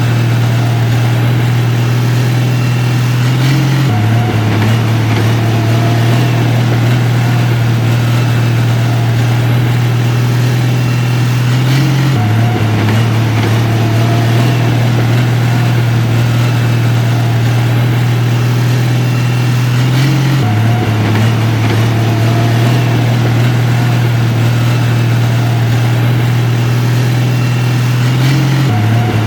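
Heavy construction machine's diesel engine running steadily, a low hum that steps slightly in pitch about every eight seconds.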